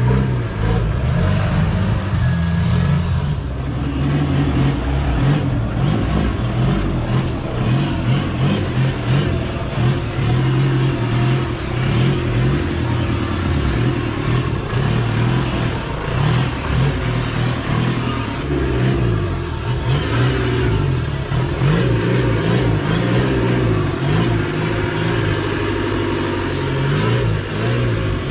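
Modified Willys jeep's engine revving up and down unevenly under load as the jeep crawls up a muddy, rutted off-road trail.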